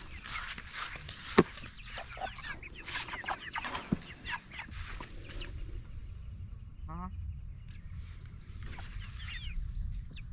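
A flock of Cornish Cross meat chickens calling, many short high peeps and clucks that thin out after about five seconds. A single sharp click about a second and a half in is the loudest sound.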